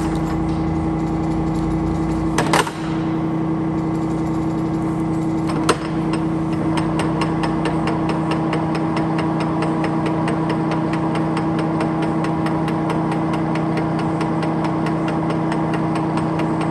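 Monarch 16" x 30" geared-head engine lathe running with its spindle at about 158 rpm, the headstock gear train giving a steady hum. There is a clunk about two and a half seconds in and another near six seconds. After that comes a fast, regular ticking.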